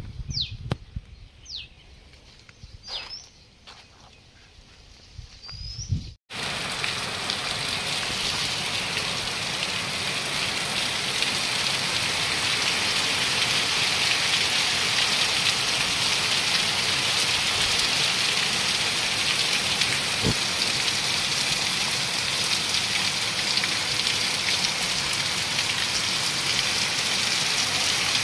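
A few short, falling bird chirps over a quiet background, then, after an abrupt cut about six seconds in, heavy monsoon rain pouring down in a dense, steady hiss on concrete and foliage that grows slightly louder.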